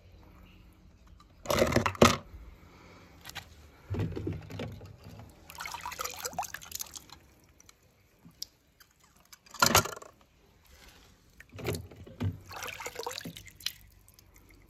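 Small toy cars dropped into a shallow tub of water, splashing several times, with water sloshing and dripping between the splashes as the cars are fished out.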